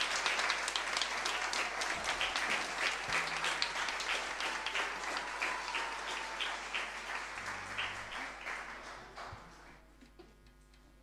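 Audience applauding, the clapping thinning out and dying away about nine seconds in.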